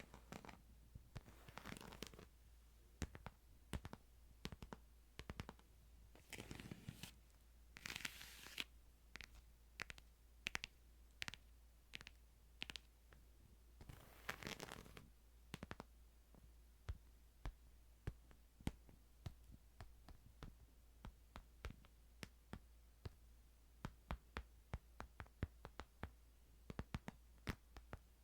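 Quiet ASMR handling of a Bible: many light taps and scratches on the book, broken by a few soft rustles of its paper, about four in all.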